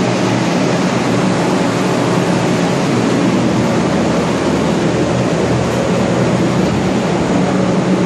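Several blue centrifugal air movers (carpet-drying blower fans) running together for flood-damage structural drying: a loud, steady rush of air over a low motor hum.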